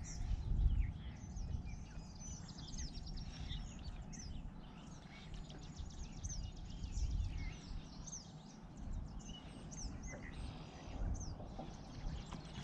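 Several birds chirping and singing in quick short falling notes, over a low uneven rumble.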